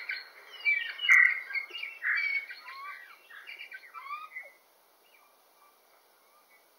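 Songbirds chirping and singing: a busy run of short chirps, whistled slides and trills that dies away about four and a half seconds in, leaving near silence.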